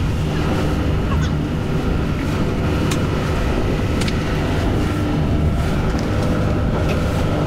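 Motorboat engine running steadily under way, with wind and water rushing past. A couple of brief sharp clicks about three and four seconds in.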